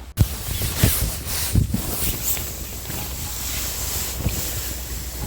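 Shelter fabric rustling and crackling as a person shifts about inside the emergency shelter, with wind buffeting the microphone and irregular low thumps.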